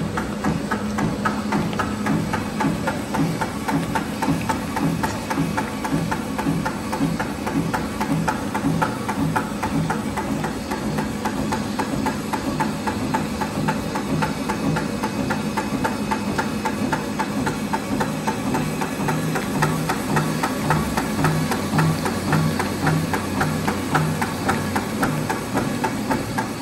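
Semi-rotary label die-cutting machine running, an even rhythmic clatter of repeated mechanical knocks over a steady machine hum.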